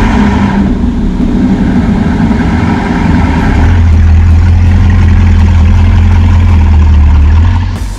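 Bugatti Chiron Super Sport 300+ quad-turbo W16 engine running at a higher pitch, then settling into a deep, steady idle about four seconds in, cutting off suddenly near the end.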